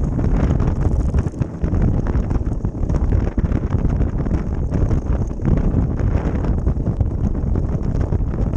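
Ice boat's runners rumbling and scraping over lake ice at speed, with a steady run of small clicks and knocks, and wind buffeting the microphone.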